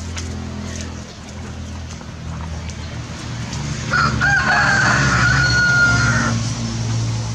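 A rooster crowing once, about four seconds in: a single call of a bit over two seconds, held on one pitch, over a low steady hum.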